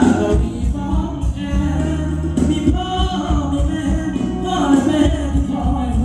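Amplified Thai ramwong dance music from a live band through a loudspeaker system: a singer over a steady beat.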